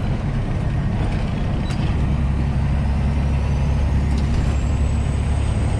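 Semi-truck's diesel engine and road noise heard from inside the cab while driving at a steady speed: a loud, even low drone, with a faint high whine rising near the end.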